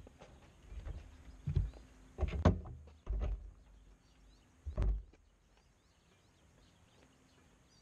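A few irregular dull thumps and knocks, the loudest about two and a half seconds in, then a quiet stretch with faint high bird chirps.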